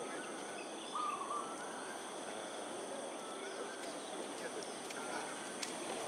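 Outdoor ambience: a steady background hiss with a few short chirping bird calls, one a little louder about a second in, over faint steady high insect tones.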